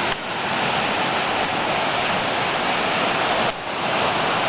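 Flooding mountain creek in spring runoff, a loud steady rush of fast water that briefly dips twice. The speaker calls it powerful.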